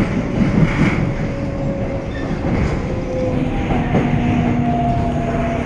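Seoul Subway Line 4 train heard from inside the car while running: a steady low rumble from wheels and running gear, with a thin whining tone that drifts slowly lower, then a second, higher whine coming in about four seconds in.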